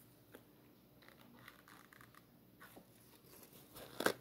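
Quiet handling noise: faint paper rustles and light ticks, with a brief louder crinkle near the end.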